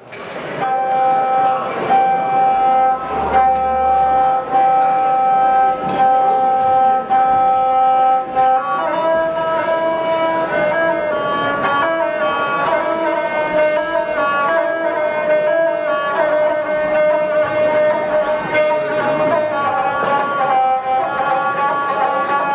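Gusle, the single-string bowed Balkan fiddle, played solo. It holds one long note for about the first eight seconds, then moves into a shifting, ornamented melody.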